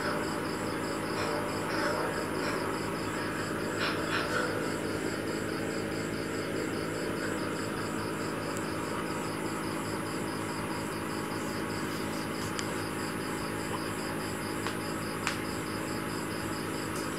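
Steady low hum of aquarium equipment, overlaid by a high, evenly pulsing chirp that repeats a few times a second.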